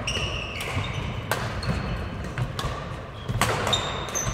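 Badminton rally: sharp racket strikes on the shuttlecock, about one a second, mixed with short high squeaks of court shoes on the wooden floor.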